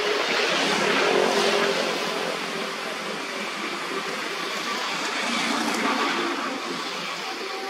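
Motor vehicle passing, its engine and tyre noise swelling about a second in, fading, then swelling again around six seconds before dying away.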